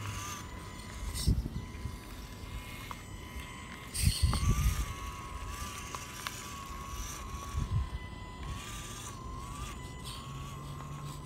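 Small electric motor of a WPL Ural RC truck whining as it crawls over rocks, its pitch wavering up and down with the throttle. A few low thumps, the loudest about four seconds in.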